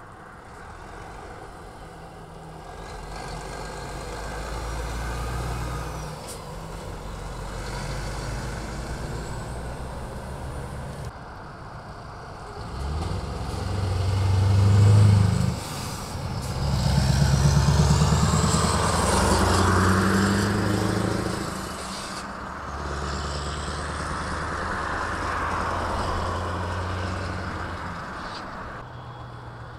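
Heavy diesel trucks drive past one after another, their engines pulling away through a junction. The loudest pass comes in the middle, with the engine note climbing as the truck accelerates by.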